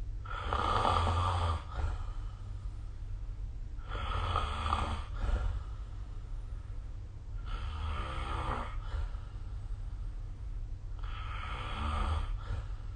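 A sleeping person snoring: four snores, each lasting about a second and a half, coming regularly about every three and a half seconds, over a steady low hum.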